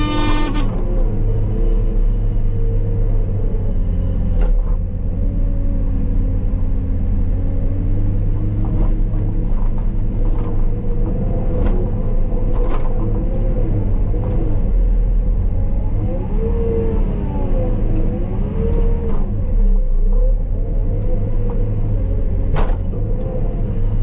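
Wheeled JCB Teleskid skid steer's diesel engine and hydraulics running under load while plowing snow, heard inside the cab, the engine note rising and falling a few times past the middle, with a few sharp knocks. A horn sounds at the start and cuts off about half a second in.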